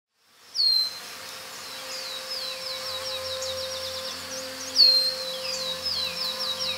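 A bird singing twice: each phrase opens with a loud, sharp downward-sliding whistle, then a run of short falling notes that speed up. A steady low hum lies beneath.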